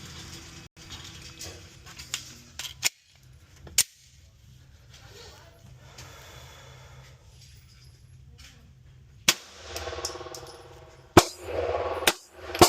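Glock 19 9 mm pistol firing single shots at irregular intervals: two about a second apart, a long pause, then three more in quicker succession.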